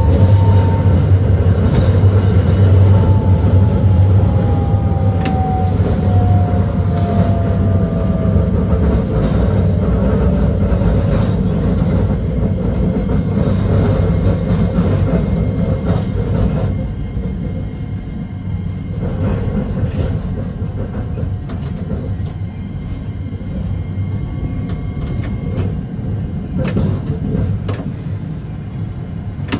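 Hakodate City streetcar running on street track, heard from the cab: a steady low hum with a whine that falls in pitch over the first several seconds, and occasional clicks from the wheels on the rails. The sound drops in level a little past halfway, and a few short, faint, high wheel squeals follow.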